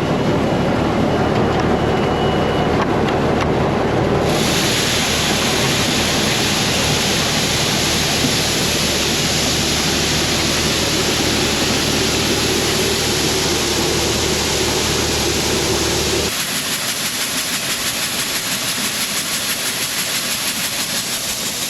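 Freightliner semi truck's diesel engine idling, then a loud rushing hiss that starts suddenly about four seconds in as the hopper-bottom trailer is dumped and shelled corn pours into the pit. Near the end the engine hum drops away while the rushing goes on with a fast, even pulsing.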